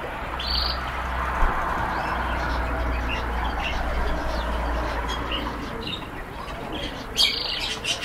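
Caged canaries chirping in short, scattered calls, with a louder burst about half a second in and another near the end. A low hum runs underneath and fades out about six seconds in.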